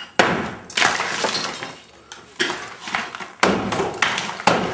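A series of about five crashes of breaking debris with glass shattering, as part of a house is smashed in demolition.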